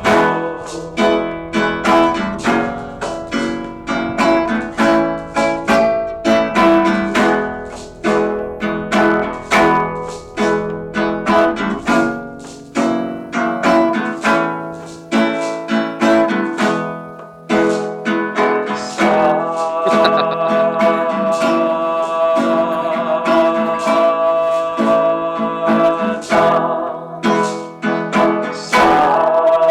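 Acoustic guitar music: plucked notes in a quick, continuous run. About two-thirds of the way through, a long held melody line comes in over the picking.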